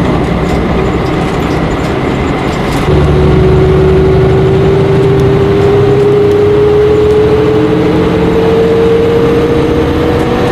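Bus engine heard from inside the cabin on a bumpy road, with faint rattling. About three seconds in it gets louder and a whine sets in, rising slowly in pitch as the bus gathers speed.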